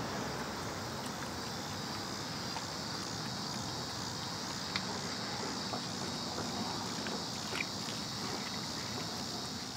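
Steady high-pitched insect chorus over a low, even background hum, with a few faint clicks.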